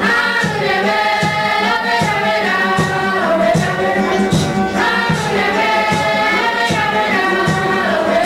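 Guarani group singing in chorus, the voices rising and falling together, accompanied by guitar and a drum struck steadily a little more than once a second.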